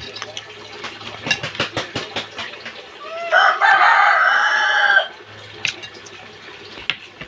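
A rooster crows once, loud and drawn out, starting about three seconds in. Before it come a run of small sharp clicks of a spoon and fork on a plate.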